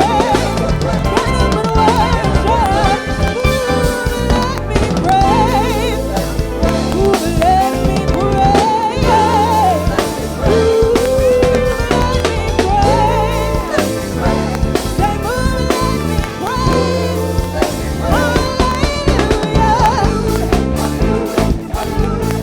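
Gospel praise-and-worship music: a singer's wavering, ornamented melody over bass and a drum kit played with a steady groove.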